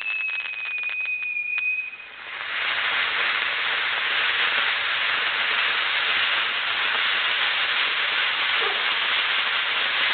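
Fireworks: a whistle falling slightly in pitch over crackling, then from about two seconds in a steady hiss that keeps going.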